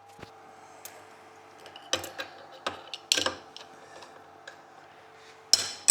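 Scattered clinks and knocks of metal tools and parts being handled: single sharp ones about two and three seconds in and a cluster near the end, over a faint steady hum.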